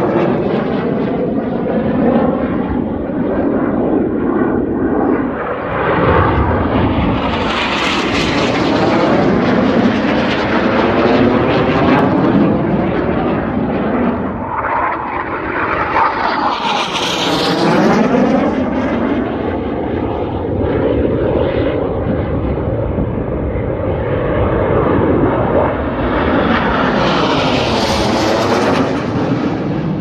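BAe Hawk jet trainer's turbofan engine sounding continuously as the jet flies past, with a sweeping whoosh that swells and fades several times as it passes.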